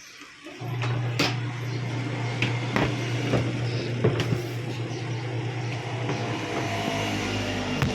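Panasonic twin-tub washing machine motor running with a steady hum that starts under a second in, with several sharp knocks over it. It is turning on its own on a newly fitted run capacitor.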